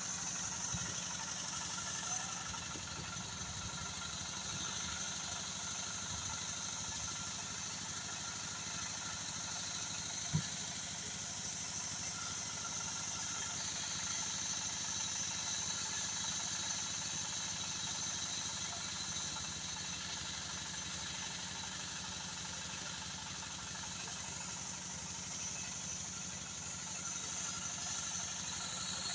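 Sawmill saw machine running steadily, with a single sharp knock about ten seconds in.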